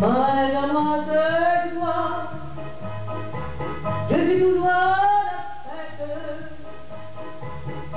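A woman singing a French chanson live into a microphone over instrumental accompaniment with a steady bass line. Two phrases each slide up into a long held note with vibrato, one at the start and one about four seconds in.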